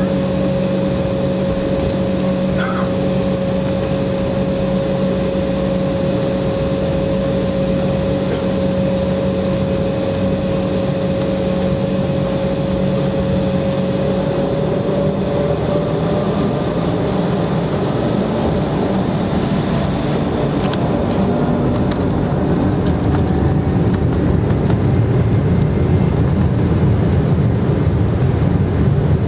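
Embraer E190's twin GE CF34 turbofan engines heard from the cabin over the wing: a steady hum, then from about halfway a rising whine as the engines spool up for takeoff, with the low rumble growing louder near the end.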